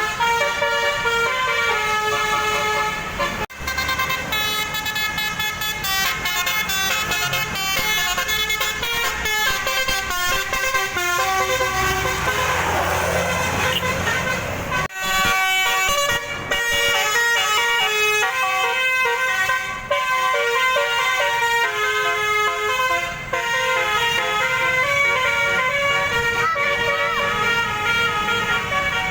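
Basuri (telolet) multi-trumpet bus air horn playing a tune of stepped tones. A siren-like sweep falls and rises about twelve seconds in, and the horn breaks off abruptly twice.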